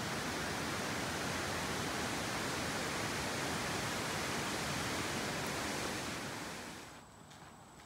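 Steady rushing of river water in a rocky gorge, an even hiss with no rhythm, fading out about six seconds in.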